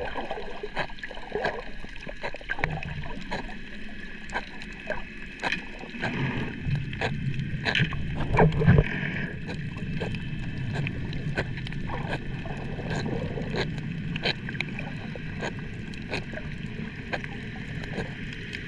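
A fish grazing underwater, heard as irregular sharp clicks and crunches from its bites, over a steady rush of water.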